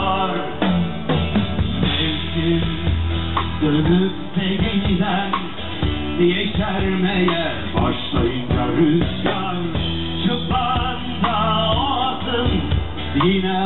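Live band music played through stage speakers: a drum kit keeping the beat under a sung or played melody.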